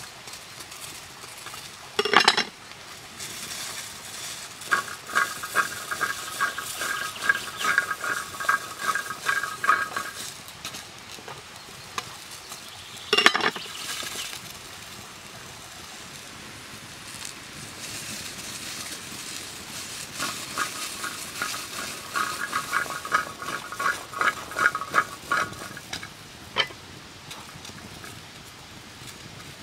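Zucchini sizzling in a steel frying pan over a wood fire. A metal utensil stirs and scrapes against the pan in two spells of quick, even strokes. Two sharp metal clanks come about two seconds in and again about thirteen seconds in.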